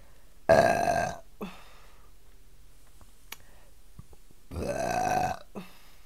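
A woman burping loudly twice, about half a second in and again near the five-second mark, the first the louder. The burps come from chugging three bottles of water fast, with her stomach tight.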